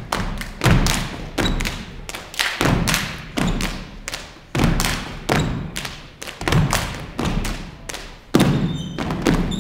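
Step dancers' body percussion: shoes stomping on a wooden stage floor mixed with hand claps and slaps against chest and thighs, in a fast syncopated rhythm that breaks off in short pauses.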